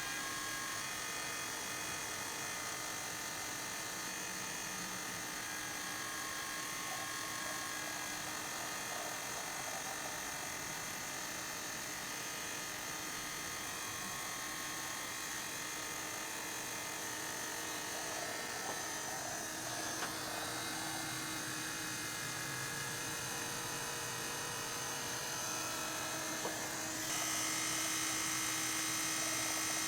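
Small electric motors of a fischertechnik model dredger running with a steady whine, getting somewhat louder near the end.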